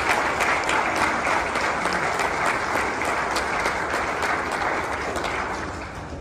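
A crowd of mourners applauding steadily, the clapping dying down near the end and then cutting off abruptly.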